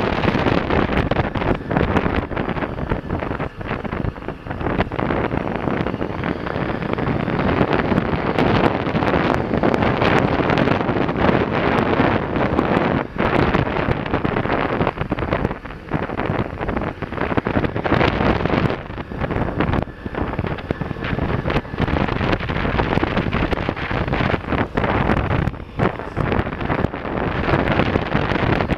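Wind buffeting the camera microphone, uneven with short dips, over a large adventure motorcycle's engine running as it rides a dirt trail.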